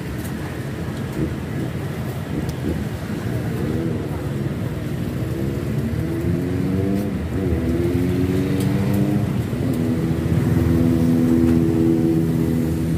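A motor vehicle engine close by, its pitch rising and falling a few times as it revs, then running steadily and louder in the last few seconds.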